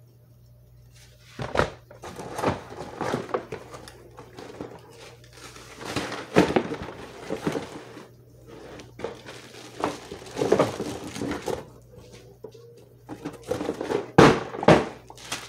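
Handling noise from a large plastic toy dinosaur and its cardboard box: irregular knocks, thuds and scuffing as the pieces are moved around, with two sharp knocks near the end.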